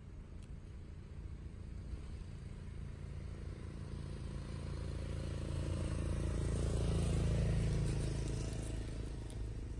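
A motor vehicle passing: a low engine and road rumble that slowly swells to its loudest about seven seconds in, then fades away.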